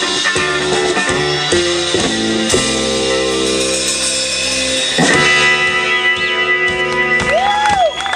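Live band ending a song: a guitar plays a repeated figure, then strikes long chords, the last one about five seconds in, and lets them ring out.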